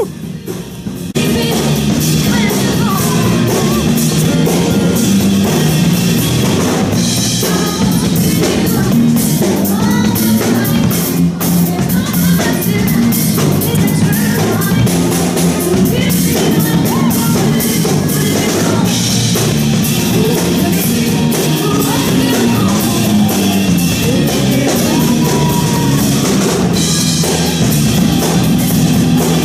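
Loud music with a drum kit and singing, starting about a second in.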